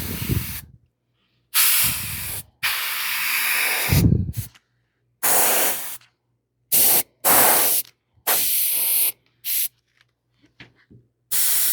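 Airbrush spraying paint in a series of short bursts of hiss as the trigger is pressed and released, about nine bursts of uneven length with brief silences between.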